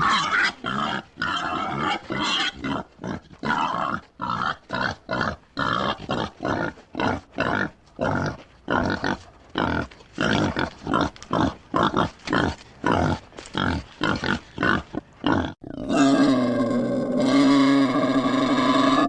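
Wild boar grunting over and over in short, rough bursts, about one or two a second. About 16 seconds in, the grunting stops and a different continuous sound with a steady pitch takes over.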